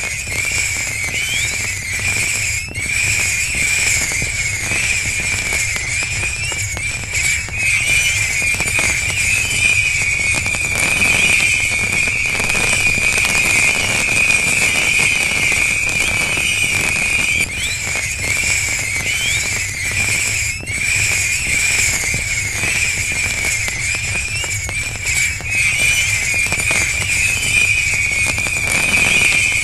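Diamond Collection DC080 'Crocodile' fireworks cake firing shot after shot, with a continuous high whistle from its tails, hiss and crackle, and short rising whistles. A few sharp bangs break in.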